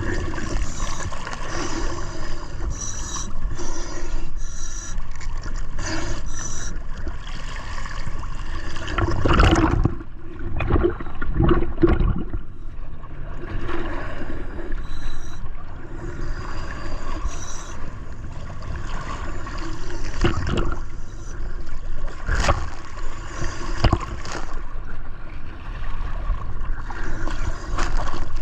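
Water gurgling and sloshing steadily, broken by irregular louder surges and a few sharp knocks.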